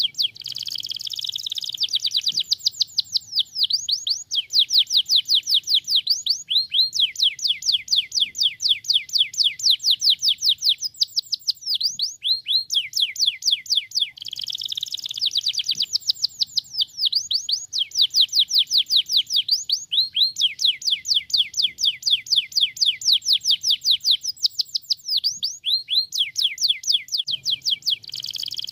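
Domestic canary singing continuously: long rapid trills of quick, evenly repeated sweeping notes, broken now and then by short, denser warbling passages.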